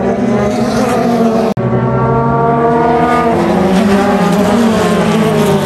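JAF F4 formula race cars' engines running past at speed, the engine note falling and then climbing again. A very short break in the sound about one and a half seconds in.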